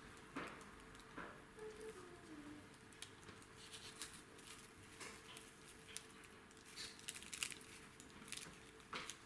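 Faint, irregular crackling of crispy baked filo-pastry samosas being torn open by hand, the flaky layers snapping in many small crackles, thickest near the end.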